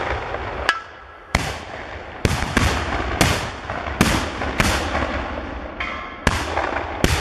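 A ragged string of small black-powder cannons firing one after another, about ten sharp reports in seven seconds, unevenly spaced, each with a short echo.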